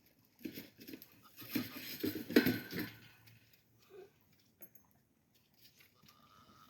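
Alpine bucks scuffling: a run of clattering knocks from about half a second to three seconds in, loudest about two and a half seconds in, then a few light knocks.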